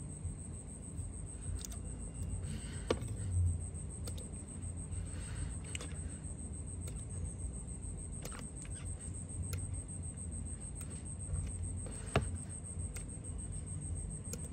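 Steady low background hum with scattered sharp clicks and taps, the clearest about three seconds in and again about twelve seconds in.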